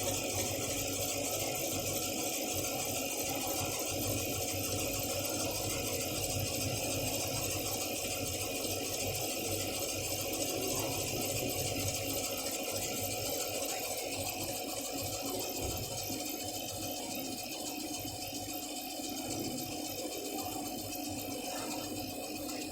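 Small 6040 CO2 laser engraving and cutting machine running while it engraves and cuts acrylic: a steady mechanical whirring with a constant hiss.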